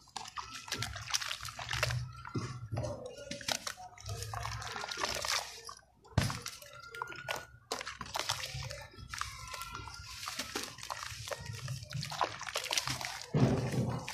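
Hands squeezing and crumbling a water-soaked block of sand-cement in a tub of muddy water: wet sloshing and squelching with irregular gritty crackling and dripping.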